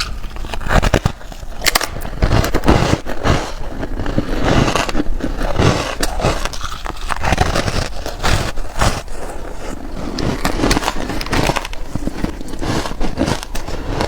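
Close-miked crunching of reshaped powdery ice being bitten and chewed: an irregular, continuous run of crisp crackling crunches.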